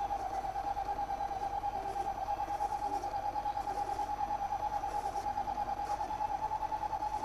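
Electric hum from a radio-controlled model jeep's steering and drive electronics: one steady mid-pitched tone that pulses quickly and evenly.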